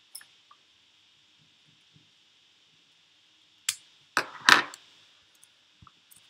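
A few light clicks, then a sharp click and a short, louder clatter with two peaks about four seconds in: handling noise at a desk.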